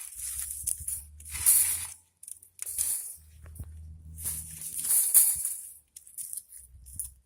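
A run of short rustling bursts, about five, as material is shifted about by hand, with a low rumble between some of them.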